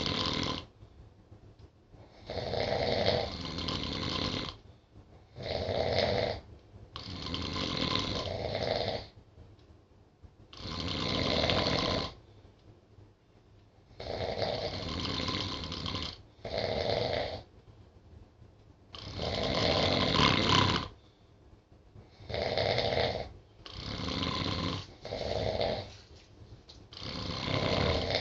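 Two sleeping people snoring. The snores come as rough, noisy breaths one to two seconds long, at irregular intervals with short pauses between them.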